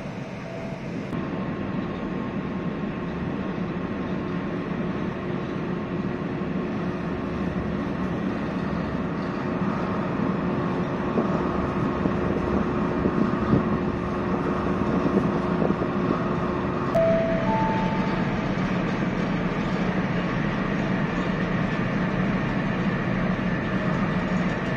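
Steady low rumble of a large car ferry under way: its engines and hull noise. About two-thirds of the way through, a short two-note chime rises in pitch.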